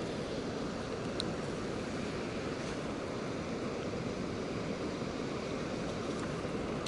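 Steady rushing noise of a flowing river.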